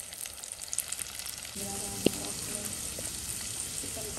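Small onions, garlic, dried red chillies and ginger-garlic paste frying in sesame oil in a clay pot: a steady sizzle as the paste is sautéed to cook off its raw smell. A single sharp tick comes about two seconds in.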